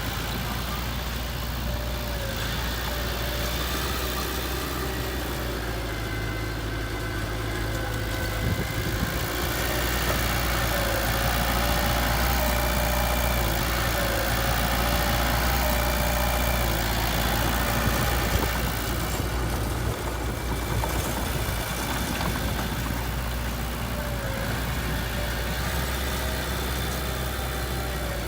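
Heavy equipment's diesel engine running steadily, a little louder for several seconds in the middle.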